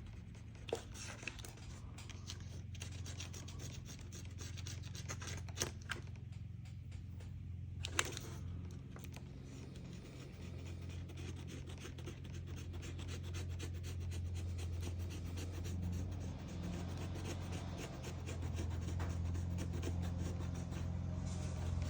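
Rubbing and scraping on the glass of an LCD panel as old polarizer film residue is worked off, with a few sharp clicks, over a steady low hum.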